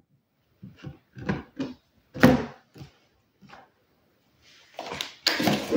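Oracle cards being dealt onto a wooden tabletop: about six separate soft taps as each card is put down, then a busier patch of card sliding and tapping near the end as the row is straightened.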